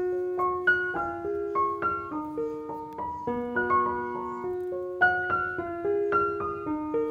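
Background music: a gentle piano melody of single notes over sustained lower notes.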